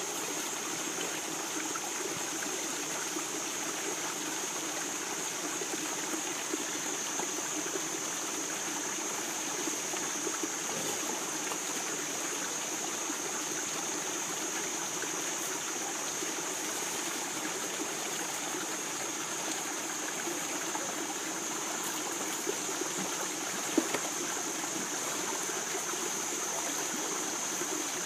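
Shallow river running over stones, a steady rush of flowing water, with a steady high-pitched hiss above it and a single short knock near the end.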